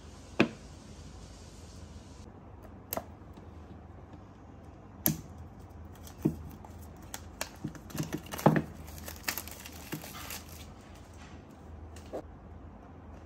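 Irregular light clicks and taps from handling a MacBook Pro, with a quicker cluster of them around the middle.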